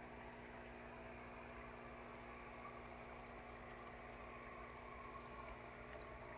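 Aquarium filter running faintly: a steady low hum with a soft wash of moving water.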